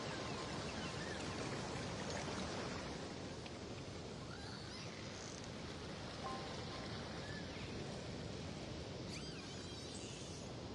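Spinner dolphins whistling underwater, with short rising and falling whistles, a few held tones and a cluster of arching whistles near the end, over a steady underwater hiss.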